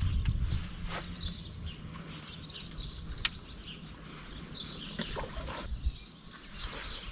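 Birds chirping in short, repeated calls. A low steady hum underlies the first couple of seconds and then fades.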